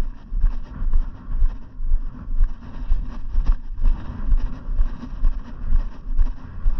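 Wind rumbling on the microphone, with dull footstep thumps about twice a second from walking on old cracked asphalt.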